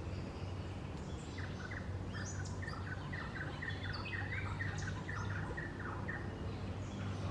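Wild bird singing: a fast, chattering run of short chirping notes that starts about a second in and stops near the end, over a steady low hum.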